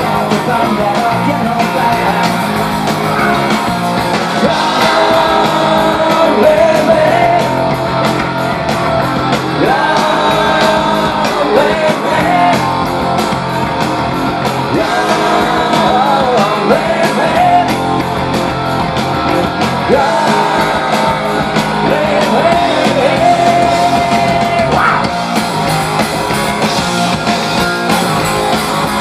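Live punk rock band playing loud on electric guitar, electric bass and drum kit, with a melodic line bending up and down in pitch over the steady full-band sound.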